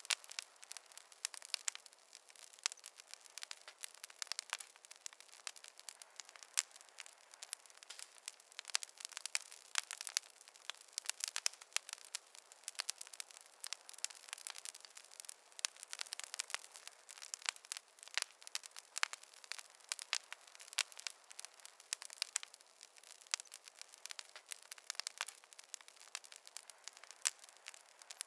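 Campfire wood crackling: a dense, irregular stream of small sharp pops and snaps over a faint hiss.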